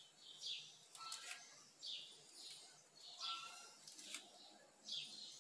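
Faint, repeated chirping of a small bird: short falling high notes about twice a second. There are a couple of light clicks at about one second and four seconds in.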